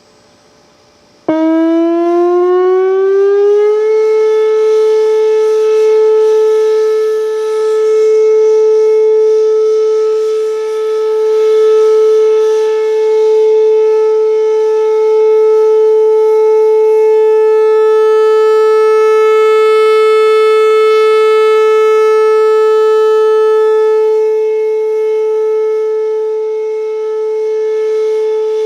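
Whelen Vortex R4 outdoor warning siren sounding its steady Alert signal. It comes on suddenly about a second in and glides up in pitch for a few seconds. It then holds one steady tone, with its loudness swelling and dipping slightly.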